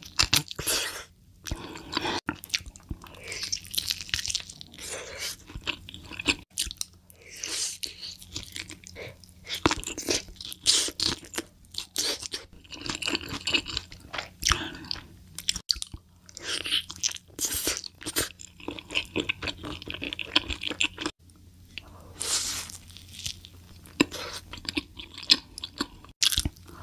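Close-miked eating: crunching bites and chewing of sauce-coated fried chicken, many sharp crunches one after another. Near the end, a bite into a cheeseburger.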